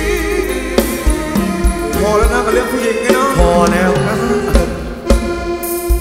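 Thai ramwong dance music from a live band: a melodic instrumental passage over a drum beat with repeated bass-drum thumps.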